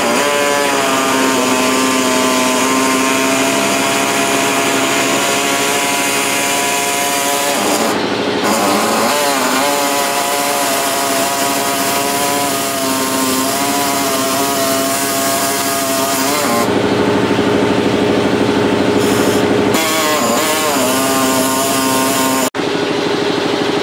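Handheld power tool running and cutting into the cast-iron cooling fins of a Briggs & Stratton engine cylinder, its motor pitch wavering as it loads up in the cut. It cuts out for an instant near the end.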